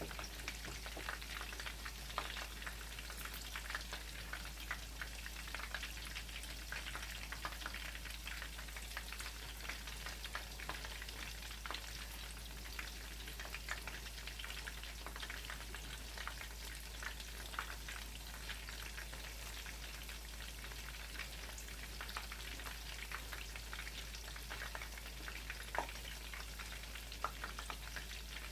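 Chicken tenderloin cutlets frying in hot oil in a pan: a steady sizzle with many small crackling pops. The cutlets are still mid-fry, about two minutes from done.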